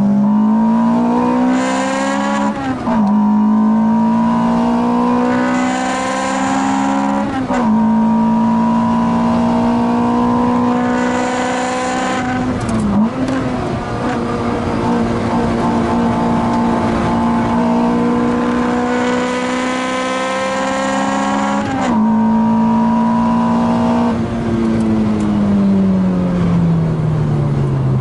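Car engine pulling hard through the gears: its pitch climbs in each gear, breaking off sharply at four gear changes, then falls steadily over the last few seconds as the car comes off the throttle and slows.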